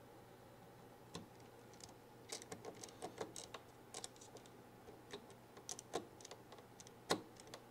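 Faint, irregular light clicks and taps of small plastic parts being handled inside an opened DJI RC smart controller, with one sharper click near the end.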